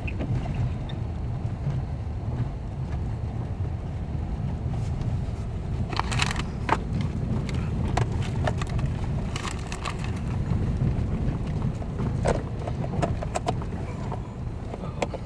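Inside a moving vehicle's cabin: a steady low rumble of engine and tyre noise on the road, with scattered short clicks and rattles in the middle.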